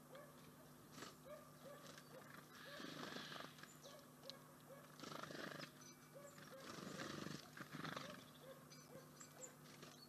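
Faint outdoor feeder ambience with a steady low hum and a soft short chirp repeating about twice a second, broken by bursts of rustling and scrabbling as a red squirrel moves about a wicker basket of seeds and nut shells, the longest burst about two-thirds of the way in.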